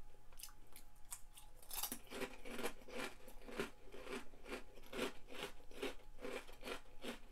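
A person chewing a crunchy pork rind sandwiched between cheese crisps, with a steady run of crunches about three a second that grow louder about two seconds in.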